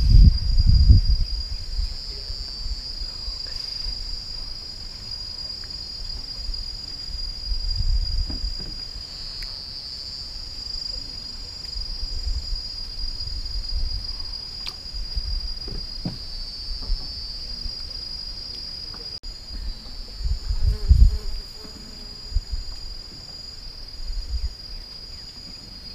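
Steady high-pitched chorus of insects, with a faint pulsing layer above it. A few low thumps and rumbles, the loudest right at the start and about two-thirds of the way through.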